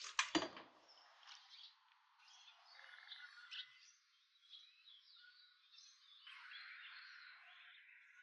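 A couple of sharp knocks at the start, then faint outdoor background with birds chirping now and then.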